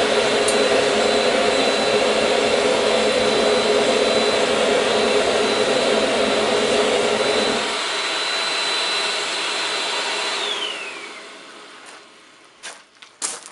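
A forge's electric air blower runs with a steady rush of air and a thin high whine. The low rumble stops about eight seconds in, and a couple of seconds later the whine falls in pitch as the motor spins down. A few faint clicks follow near the end.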